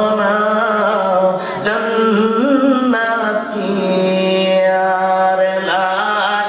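A man's voice chanting in long, drawn-out notes that bend and waver, several held notes in a row, in the melodic style of devotional chanting in a Bangla waz sermon.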